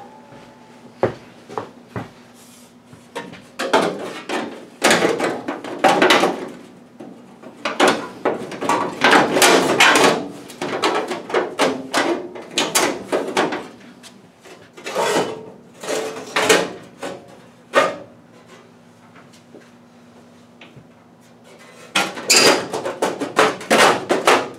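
Steel 1935 Ford truck firewall being pushed and worked by hand into a car's cowl for a test fit: irregular clanking, knocking and scraping of sheet metal, in clusters, with a quieter pause of a few seconds before a last burst near the end.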